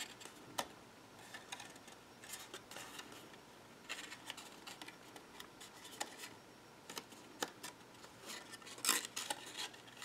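Cardstock being handled and folded by hand: soft paper rustles and small scattered taps and clicks as glued tabs are pressed into place.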